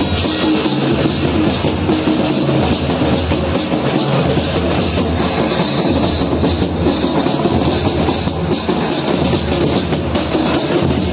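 Loud music with drums keeping a steady beat.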